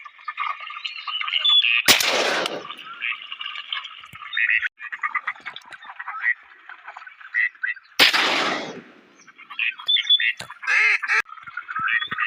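Two shotgun shots about six seconds apart, each with a rolling echo, over ducks calling and quacking.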